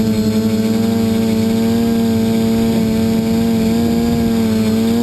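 Quadcopter's four brushless motors and propellers holding a hover, a loud, steady buzzing hum with a clear pitch, heard up close through the GoPro mounted on the frame.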